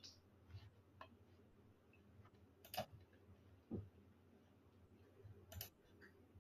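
Near silence of a quiet room, broken by a few faint, scattered computer mouse clicks, the sharpest about three seconds in.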